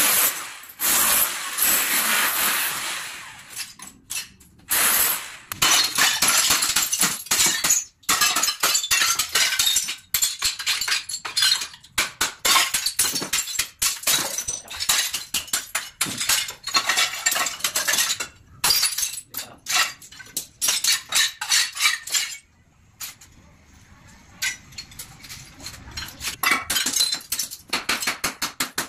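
A hammer smashing a porcelain toilet bowl: rapid sharp blows with ceramic shards cracking and clinking, broken by a quieter stretch of a few seconds near the end. It opens with a few seconds of a corded power tool grinding into the porcelain.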